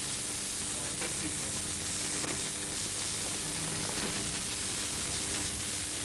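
A steady, even hiss of noise, with a few faint steady tones underneath.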